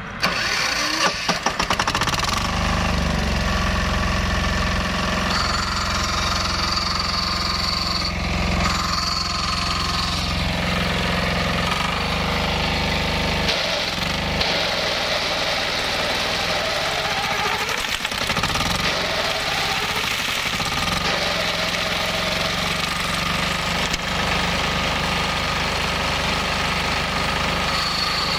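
18 hp diesel engine of a flail mower starting, with a few sharp strokes in the first couple of seconds, then running steadily. Its speed steps up about two seconds in and shifts again partway through.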